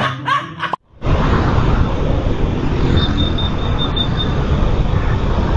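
Steady wind and road noise on a riding motovlogger's microphone, cutting out for a moment about a second in. Just past the middle, a quick run of about seven short high beeps.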